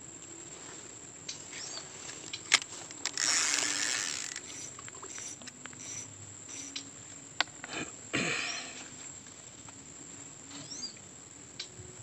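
A steady high-pitched insect drone, broken by a few sharp knocks and two louder rustling bursts, about three seconds in and about eight seconds in.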